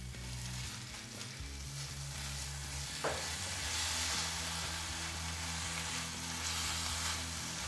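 Shredded pulled pork sizzling in butter and its own juices in a hot cast-iron skillet, stirred with a silicone spatula. A single brief click comes about three seconds in.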